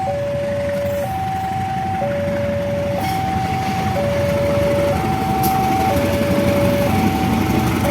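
Railway level-crossing warning alarm sounding its electronic two-tone signal, alternating high and low about once a second at a steady pitch, warning that a train is approaching. A low rumble grows louder underneath.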